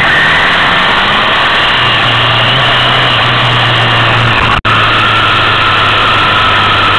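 Motorcycle engine running at road speed with heavy wind rush over an onboard microphone. The engine note shifts about two seconds in, and the sound cuts out for an instant about halfway through.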